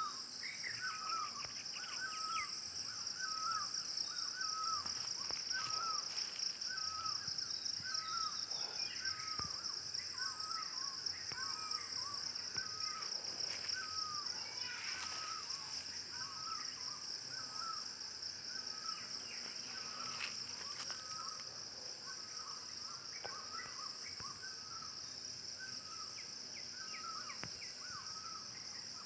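A bird repeating one short call over and over, a little more than once a second, over a steady high insect drone.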